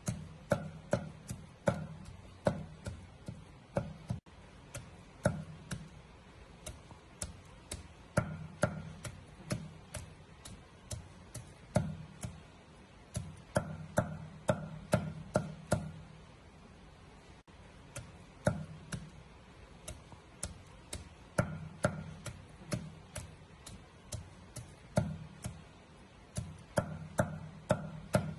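Meat cleaver chopping red chilies on a round wooden chopping board: sharp knocks in quick runs of several strokes, about two to three a second, with short pauses between runs and a longer break past the middle.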